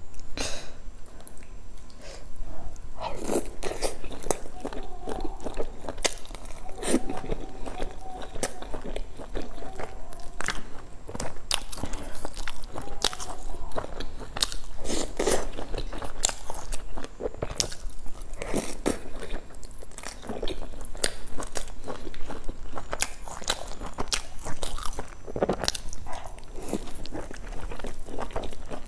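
Close-miked eating: a person biting and chewing pieces from a bowl of malatang spicy hot pot, a steady run of short wet bites, smacks and clicks.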